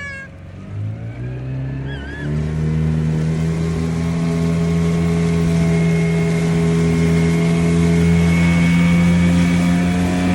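Small outboard motor on a mini boat opening up: its pitch climbs in steps over the first two seconds or so, then it runs steadily at high revs, with wind and water rushing.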